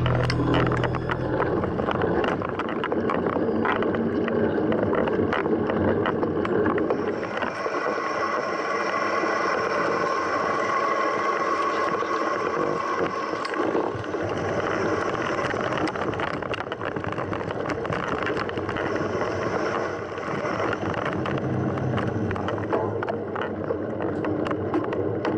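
Mountain bike being ridden over rough ground: a steady rush of tyre and wind noise with frequent small rattles and knocks from the bike.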